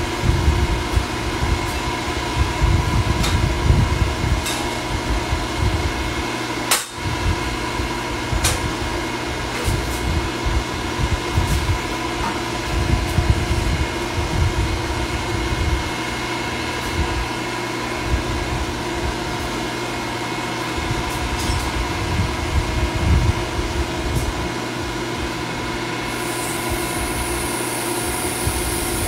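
Electric-hydraulic exhaust pipe bender running: a steady machine hum with an uneven low rumble, a sharp click about seven seconds in, and a brief hiss near the end.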